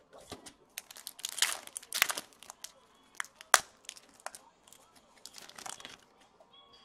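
A trading-card pack wrapper crinkling and cards being handled, a run of sharp crackles and rustles. They are loudest about one and a half to two seconds in, with a single sharp snap about halfway through.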